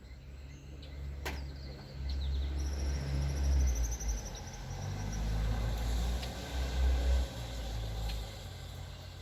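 A road vehicle passing by: a low rumble with tyre noise that builds, peaks about five to seven seconds in, then fades. A short high trill sounds over it a few seconds in.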